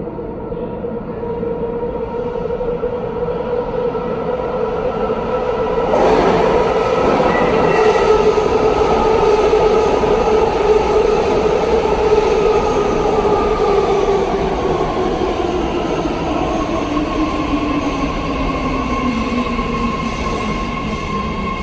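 BART train coming into an underground station with a loud rushing rumble that jumps louder about six seconds in. A pitched whine slides steadily downward as the train slows.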